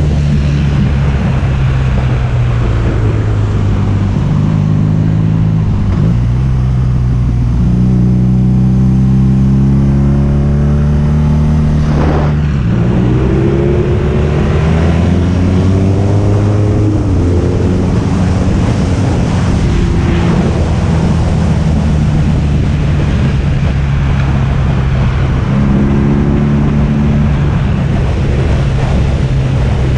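Motorcycle engine pulling the bike along a road, its revs climbing slowly and dropping at each gear change, several times over, with steady wind and road noise.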